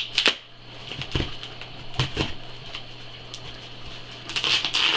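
Packing tape being picked at and peeled off a cardboard box by hand: a few sharp scratches and taps on the cardboard, then a longer rasping tear of tape near the end. A faint low hum underneath stops about four seconds in.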